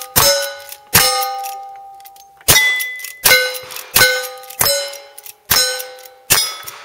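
Lever-action rifle fired about eight times in quick succession at steel targets, each shot followed by the ringing clang of the struck steel plate, the pitch changing from plate to plate. The shots come roughly every three-quarters of a second, with one longer pause of more than a second after the second shot.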